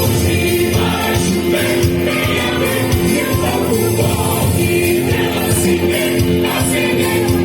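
Music with singing voices over a steady beat and tambourine-like percussion.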